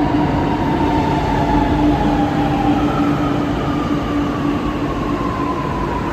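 Chennai Metro electric train pulling into the platform: a steady rumble of the cars with a motor whine that slowly falls in pitch as the train slows.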